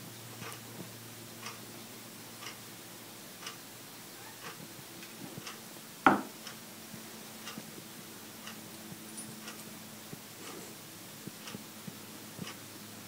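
A clock ticking steadily, about once a second, with one sharp knock about six seconds in that is the loudest sound; a faint low hum runs underneath.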